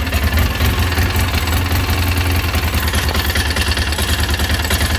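Polaris Ranger Crew 800's twin-cylinder fuel-injected engine running with an intermittent misfire that comes and goes as the PTO-side injector's connector is moved. The misfire is caused by a failing bonded (epoxied) connection on that injector.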